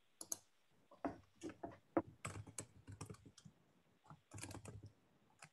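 Faint typing on a computer keyboard: irregular clusters of short key clicks.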